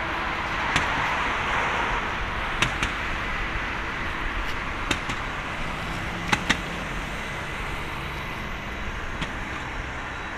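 Airbus A330-200's General Electric CF6 turbofans at low taxi thrust as the airliner rolls slowly onto the runway before takeoff, a steady jet rush. Several short sharp clicks sound over it.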